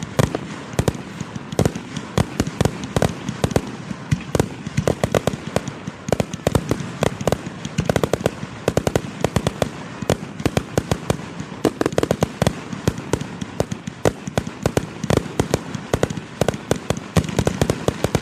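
Fireworks display shells bursting close by in rapid succession: a dense, continuous run of sharp bangs and crackles, several a second.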